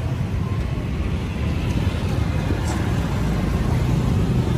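Street background noise: a steady low rumble, with faint voices.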